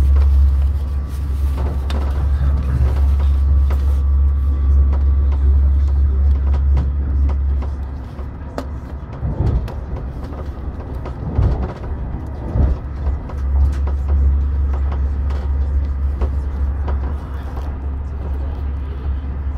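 Running noise of a passenger train heard from inside the carriage: a steady low rumble that weakens and wavers for a few seconds midway.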